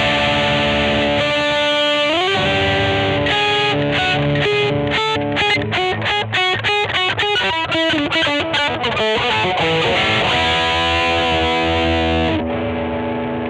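2003 Godin SD 24 electric guitar played with a distorted tone. A note is bent upward about two seconds in, followed by a fast run of picked notes, then held notes that ring out and stop near the end.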